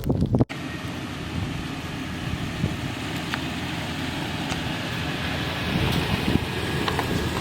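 A vehicle driving: a steady rumble and hiss with a few faint knocks. Background music cuts off about half a second in.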